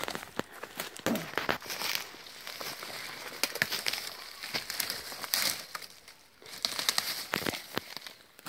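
Footsteps crunching through dry leaves, twigs and fallen branches on a forest floor, with irregular sharp crackles of sticks snapping and litter rustling underfoot.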